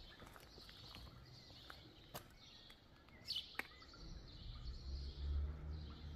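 Birds chirping over the walker's footsteps on paving, with a low rumble coming in about two-thirds of the way through.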